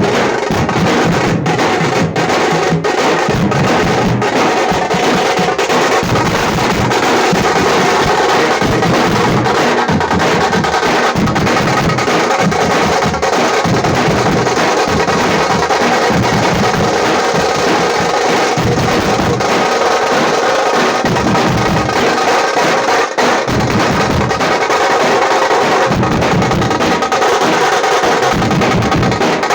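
Tamate, the stick-beaten leather frame drum of Karnataka, played in a fast, continuous drumming rhythm with dense, unbroken strokes.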